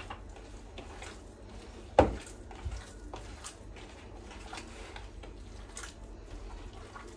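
Hands kneading a minced-meat köfte mixture in a plastic bowl: soft squelching with scattered small clicks, and one sharp knock about two seconds in.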